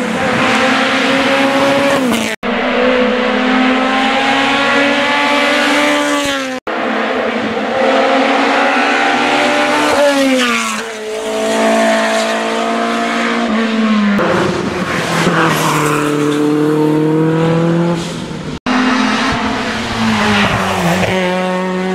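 Hill-climb race cars, including a Simca Rallye saloon, revving hard up a winding road. The engine note climbs and drops again and again through the gear changes, and it cuts off abruptly a few times between passes.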